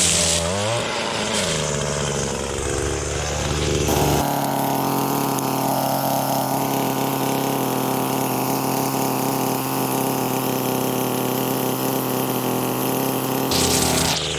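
Small two-stroke engine of a handheld power tool running at high revs, rising and falling briefly about a second in. Its steady pitch shifts abruptly about four seconds in and again near the end.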